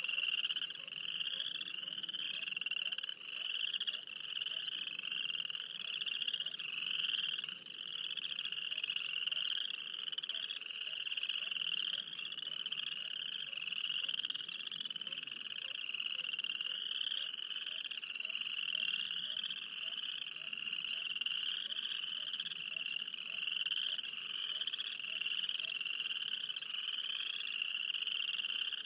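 A dense chorus of frogs calling without pause, many short rising trilled calls overlapping one another.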